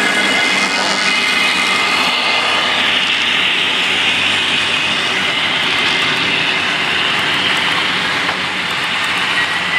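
A model freight train rolling past right beside the track: a steady rushing clatter of many small metal wheels on the rails. Thin whining tones are heard at the start as the locomotives go by, and a faint whine rises slightly near the end.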